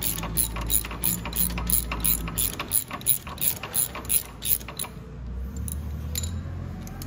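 Socket ratchet wrench clicking steadily, about four clicks a second, as it backs out the 12 mm bolt holding the motorcycle exhaust. The clicking stops about five seconds in, leaving a few light knocks.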